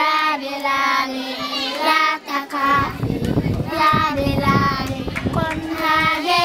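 Children's voices singing a slow melodic song with long held notes. A rough rumbling noise rises under the singing about three seconds in and fades after a couple of seconds.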